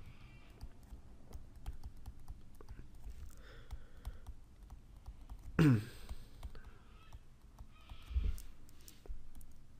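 Stylus tapping and scratching on a tablet screen as numbers are handwritten: faint, irregular small clicks. A little over halfway through comes one short sound that falls steeply in pitch, the loudest thing here, and near the end a soft low thump.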